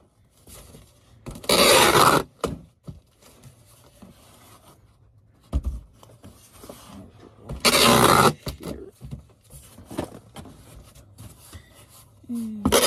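Packing tape being pulled off the roll and pressed onto a cardboard box: two loud tearing rips, each just under a second long, about a second and a half in and about halfway through, with quieter handling and rustling of the box between them.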